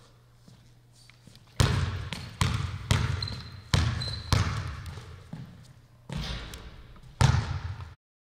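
Basketball being dribbled on a hardwood gym floor: about seven hard, irregularly spaced bounces, each ringing on in the echo of the large gym, with a faint short high squeak near the middle. The sound cuts off suddenly near the end.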